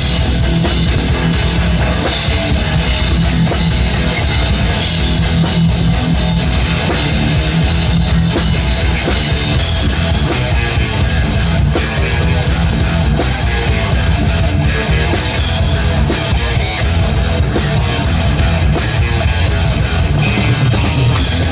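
Metal band playing live and loud: electric guitars, bass guitar and a full drum kit.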